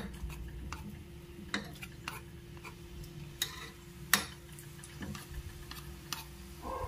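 Pieces of mathri dough frying in hot refined oil in a steel kadhai, a low sizzle throughout. Sharp clicks and knocks come from a knife scraping the pieces off a wooden rolling board into the pan, the loudest about four seconds in.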